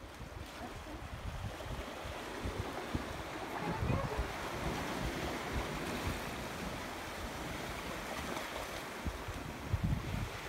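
Sea waves washing and swirling against rocks along a rocky shore, a steady surf noise, with wind gusting on the microphone.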